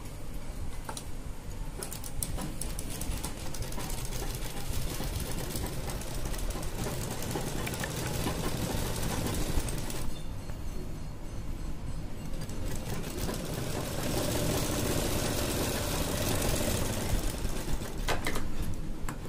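Usha sewing machine running steadily, its needle stitching a seam through cotton fabric. It eases briefly about ten seconds in and stops near the end.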